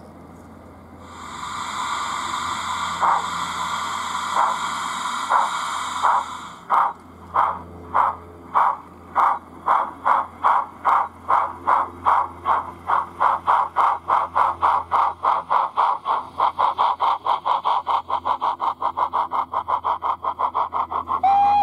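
Sound-fitted O gauge model of an A1X Terrier tank locomotive starting away. A steady steam hiss comes in about a second in, then exhaust chuffs that begin about one a second and quicken steadily as the engine gathers speed.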